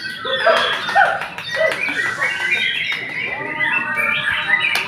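Several caged songbirds singing at once, white-rumped shamas among them, in a dense run of quick chirps and whistled phrases. Voices of people talk underneath.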